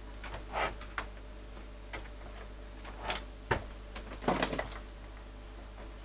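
Hands handling a Sinclair QL computer and its leads: a few scattered small clicks and plastic knocks, the sharpest about three and a half seconds in and a short cluster just after, as the RF lead is reconnected. A steady low hum runs underneath.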